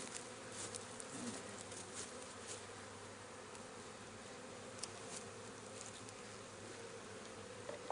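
Many honey bees buzzing steadily around an opened hive, with a few faint clicks.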